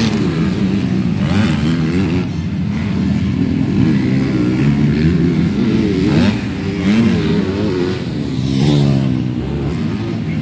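Motocross motorcycle engines revving on the race track, their pitch climbing and dropping again and again as the riders work the throttle.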